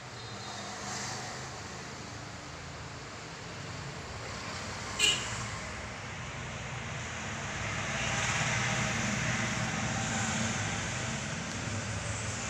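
Road traffic noise: a steady low rumble of passing vehicles that swells about eight seconds in, with one short click about five seconds in.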